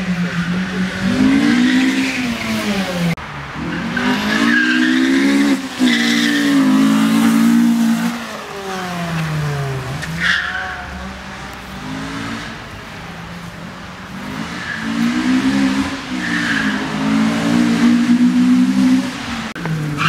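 Honda Civic's B16A2 1.6-litre VTEC four-cylinder engine at full throttle through a race course, its pitch climbing hard and dropping sharply again and again as the driver shifts and lifts for corners. The tyres squeal briefly several times in the turns.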